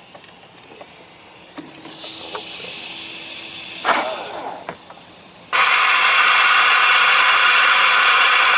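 Pressurized spray hissing as it is blown into the carburetor of a Johnson 25 hp outboard to clear a clogged slow-speed circuit, the cause of a lean sneeze. A softer hiss starts about two seconds in and stops a little after four seconds. A much louder steady hiss with a thin whistle starts about five and a half seconds in.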